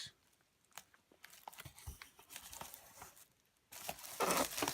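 Packaging crinkling and rustling as items are unpacked by hand, with scattered small clicks and a louder burst of crinkling about a second before the end.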